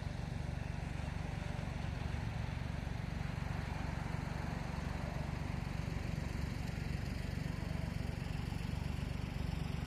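Steady outdoor ambience: a constant low rumble with an even hiss above it, and no distinct events.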